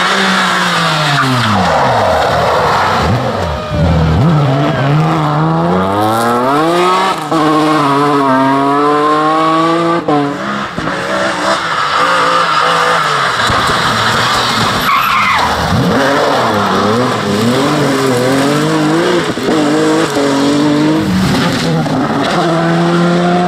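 Several rally car engines revving hard, the pitch climbing through the gears and dropping sharply as the drivers lift off and brake, one car after another.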